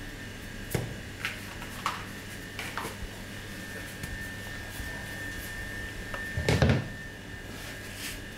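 Light knocks and taps from a plastic mixing bowl and a lump of bread dough being handled on a stainless steel worktop, with one heavier dull thump about two-thirds of the way through. A steady faint hum runs underneath.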